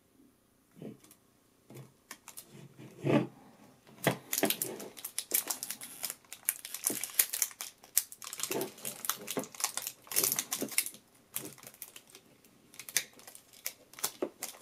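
Plastic toy night-vision goggles handled, their clear protective film crinkling and the plastic frame clicking. A few soft knocks come first, one louder about three seconds in, then a dense run of rapid clicks and crackles.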